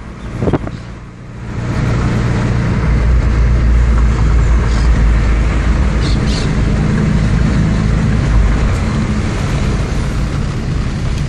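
Steady low rumble of a car's engine and tyres heard from inside the cabin while driving, rising to full level about a second and a half in.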